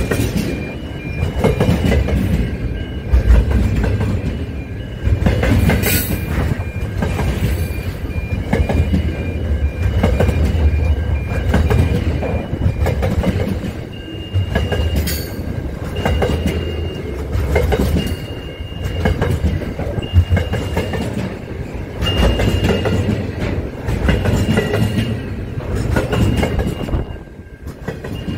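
Container freight train rolling past at close range: steel wheels clattering over the rails, with a low rumble that rises and falls about every two seconds as the wagons go by. A thin high wheel squeal comes and goes, and there are a couple of sharp clanks.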